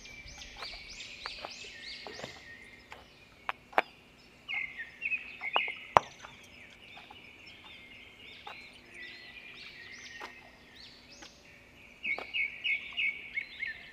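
Small birds calling in quick series of short, high chirps, over the sharp clicks of loose stones under footsteps, the loudest click about six seconds in.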